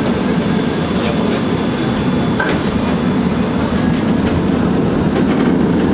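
A Tatra T3 tram running along its track, heard from inside the car: a steady rumble of wheels and running gear, with a few light clicks.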